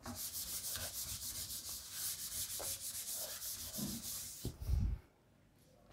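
Hand-writing: a pen or marker scratching in quick, repeated strokes for about four and a half seconds, then a brief low thump.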